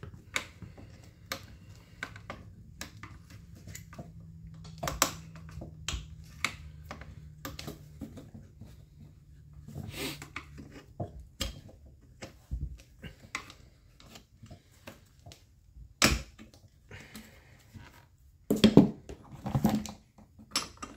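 Screwdriver turning out the small JIS screws of an Echo CS-271T chainsaw's plastic top cover: scattered light clicks and scrapes, with louder knocks and clatter of plastic parts and metal tools near the end.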